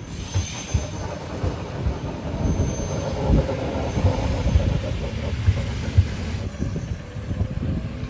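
ED4M electric commuter train moving along a platform, its wheels rumbling and knocking irregularly over the rails. It grows louder toward the middle and eases off near the end.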